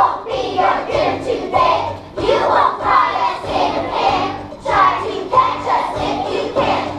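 A group of young children singing together over a musical accompaniment.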